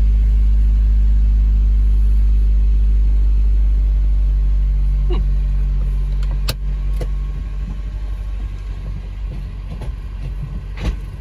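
Cabin drone of a Honda Civic Si's 2.4-litre four-cylinder engine and road noise while driving, a steady low hum that drops off about six and a half seconds in. A few light clicks come after the drop.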